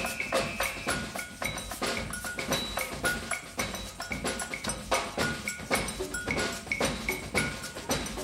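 Percussion music: quick, uneven strikes of drums and hand percussion, some strokes ringing briefly at a high pitch.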